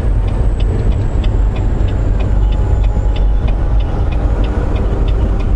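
Volvo VNL860 semi-truck's diesel engine running with a steady low rumble heard from inside the cab, with a light, even ticking at about three ticks a second.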